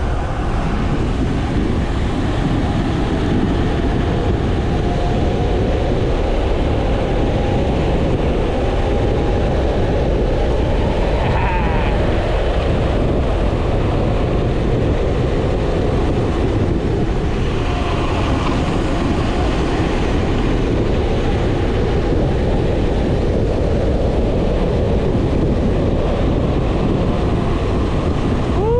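Steady rush of wind buffeting the microphone during a fast bicycle descent, mixed with road noise. Faint wavering whistling tones come and go over it, with a brief sliding whistle about halfway through and another near the end.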